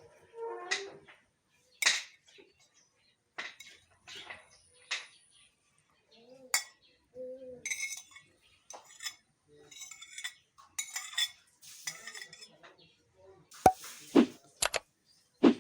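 Kitchen utensils and dishes clinking: a string of separate taps and clinks, the sharpest and loudest near the end.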